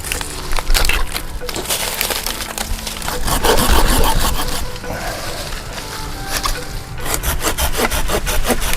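A saw cutting through wood in quick back-and-forth strokes, loudest about three to four seconds in.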